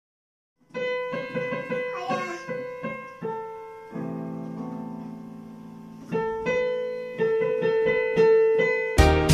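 Electronic keyboard played with a piano sound: single notes starting under a second in, a chord held and fading about four seconds in, then more notes. Right at the end a louder, fuller music comes in.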